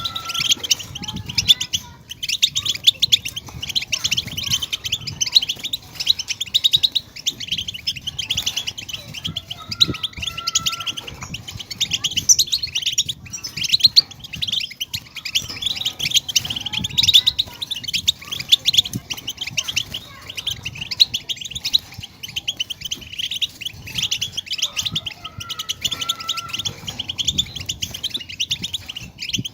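European goldfinch song: a fast, dense twittering chatter of high chirps and trills that runs on without pause.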